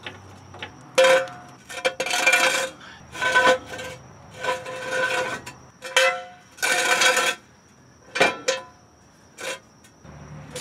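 Red hydraulic floor jack pumped by its long handle to lift the front end of a 1976 GMC motorhome: a squeaky metallic scrape on each stroke, about one every second or two, with a few sharp metal clicks in between.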